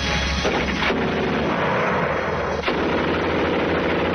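Machine gun firing continuously at a high rate, the shots running together into one ripping sound, with two sharper cracks standing out, about a second in and past halfway.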